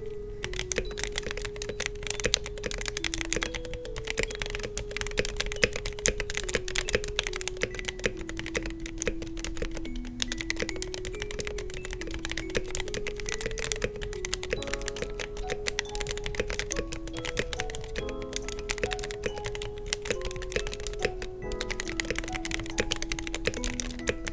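Continuous fast typing on a mechanical keyboard fitted with Everglide Aqua King V3 linear switches and Akko ASA-profile clear keycaps: a dense, uneven run of keystroke clacks. Soft background music with a simple melody plays under it.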